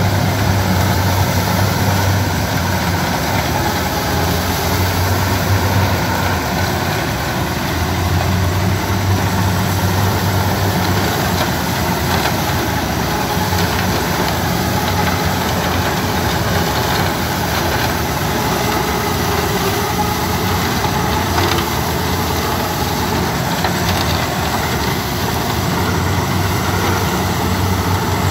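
Yanmar HS2000 sugarcane harvester's 187 hp engine running steadily as the machine cuts cane, a loud, even drone with a dense mechanical hiss over it.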